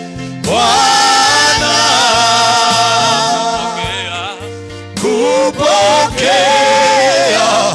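Gospel worship music: a solo voice sings long, wavering held notes over accompaniment with sustained low bass notes. One phrase begins about half a second in and a second begins about five seconds in.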